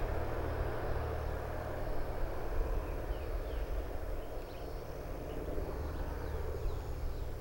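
Engine of a single-engine crop-spraying airplane droning steadily as it flies low past, a little quieter near the middle.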